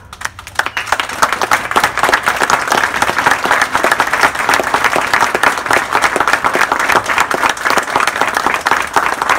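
A group of a couple dozen people applauding, dense, irregular hand clapping that starts up and fills in within the first second, then holds steady.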